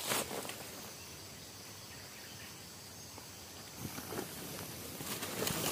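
Faint outdoor ambience with a steady high insect drone. Brief rustling and scraping comes at the start and again about four seconds in.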